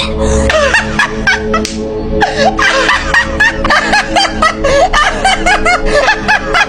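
Snickering laughter in quick, repeated high-pitched swoops over steady background music.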